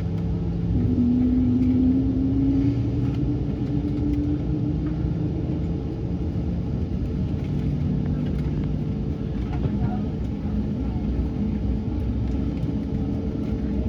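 Steady low rumble and hum inside an Airbus A220 cabin. About a second in, a stronger hum comes in and rises slightly in pitch over a few seconds.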